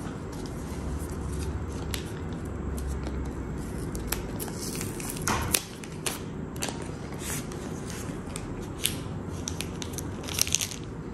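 Plastic protective wrapping crinkling and rustling as it is peeled off a small camera accessory, with scattered clicks and sharper crackles, loudest about halfway and near the end.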